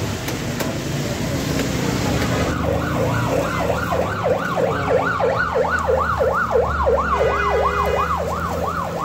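A siren starting about two and a half seconds in, its pitch sweeping quickly up and down about three times a second, over a steady hiss of noise. Near the end a short steady tone sounds briefly alongside it.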